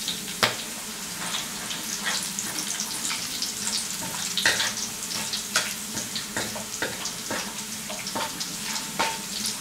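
Chopped garlic deep-frying in hot oil in a steel wok: a steady sizzle with frequent sharp crackles and clicks as it is stirred with a metal mesh strainer. The garlic is starting to turn golden.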